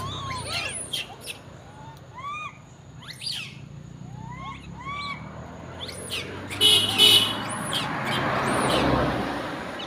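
Short high chirping animal calls repeated throughout, each rising then falling in pitch. About seven seconds in come two loud, shrill squeals, and a rush of noise swells and fades near the end.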